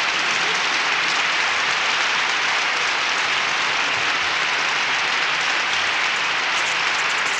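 Steady applause, a dense even patter of many hands clapping.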